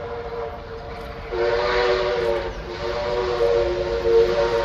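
Approaching steam locomotive's chime whistle, several notes held together as a steady chord. It grows louder just over a second in, breaks off briefly, then sounds again in a second long blast.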